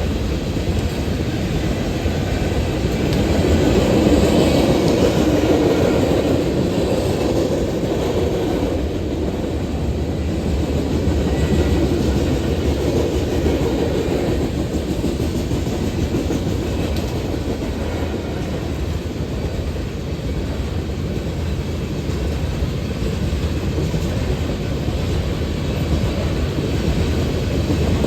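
Cars of a BNSF coal train rolling past: a steady, loud rumble with the wheels clicking over rail joints, swelling slightly a few seconds in.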